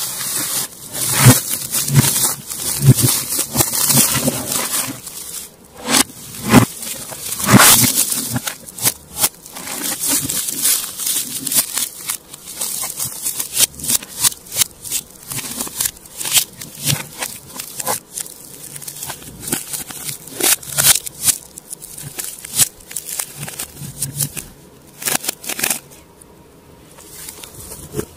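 Clear plastic shrink wrap crinkling and tearing as it is slit with a blade and pulled off a hard plastic case, in irregular crackles and rustles.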